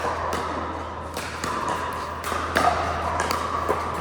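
Pickleball paddles striking the plastic ball, a sharp knock every half second to second at uneven intervals, the loudest about two and a half seconds in, over a steady low hum.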